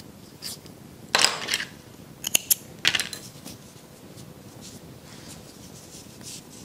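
Scissors snipping crochet yarn: three quick sharp clicks a little over two seconds in, between brief rustling bursts of the yarn being handled.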